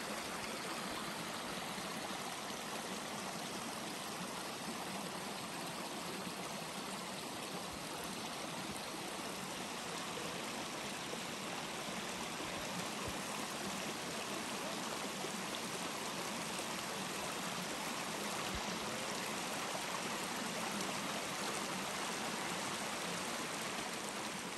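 Shallow woodland brook flowing over rocks: a steady, continuous sound of running water.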